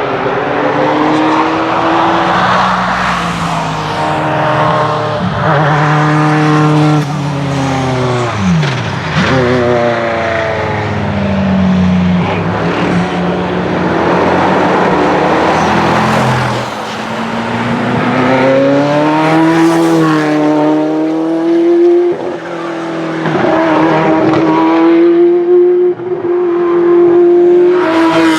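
Ferrari F40 LM's twin-turbo V8 driven hard, its revs climbing and dropping again and again through gear changes, with a sharp fall in pitch about eight seconds in and a long high-revving stretch near the end.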